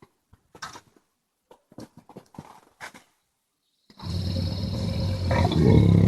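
Brown bear making a few short, quiet sounds, then about four seconds in a loud, deep growl starts and holds, growing louder near the end.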